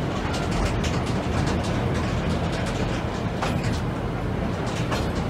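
Open-sided rail carriage running along the track: a steady rumble from the wheels and running gear, with irregular clicks and rattles.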